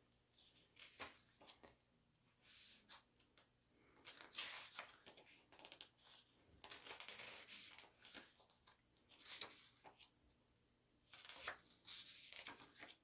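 Faint rustling and soft flicking of photo book pages turned by hand, in several separate bursts.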